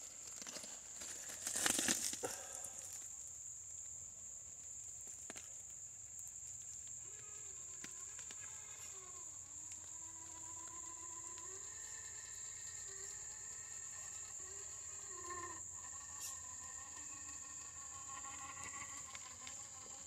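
Insects droning steadily on one high-pitched note, with a brief rustling noise about two seconds in and a faint wavering hum underneath.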